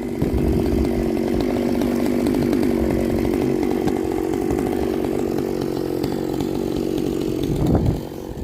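Chainsaw engine running hard at high revs with a slightly wavering pitch, as when cutting; about 8 seconds in the revs drop and the engine falls back.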